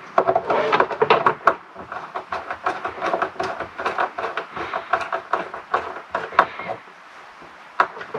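Screwdriver working the screw terminals of a solar charge controller while cables are held in them: quick, irregular clicking and rattling of metal tool and wire that dies away about seven seconds in, with one last click near the end.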